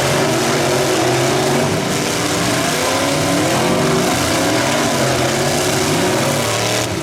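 Several demolition-derby pickup-truck engines running and revving at once, their pitches rising and falling against each other over a steady wash of noise.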